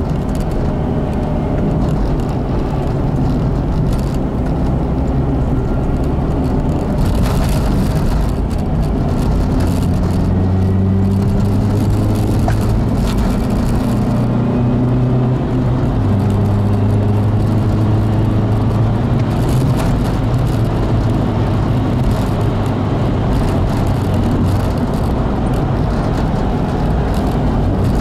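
Car driving on a road: a steady engine drone with tyre and road noise. Its pitch steps up and down a few times as the speed changes, with occasional rattles.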